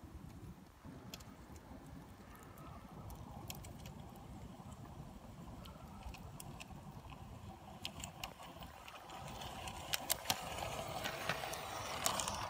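LGB garden-railway train running along its track, a low rumble of wheels and motor with scattered sharp clicks. It grows louder from about two-thirds of the way in as the train comes close.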